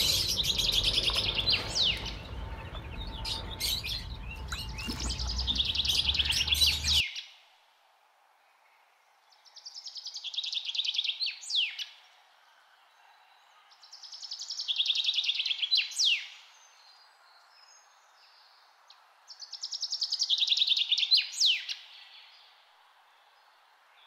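A songbird singing the same short phrase about every four to five seconds: a fast buzzy trill ending in a sharp rising note. A low rumble runs under the song for the first several seconds, then cuts off suddenly.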